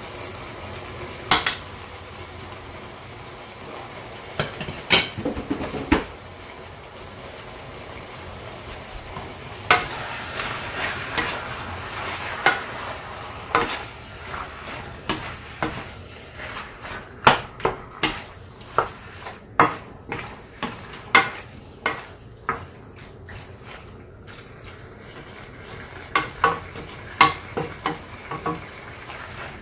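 Wooden spoon stirring pork in a stainless steel sauté pan, scraping and knocking against the metal, over a light sizzle of the meat frying. The knocks come thick and fast in the second half.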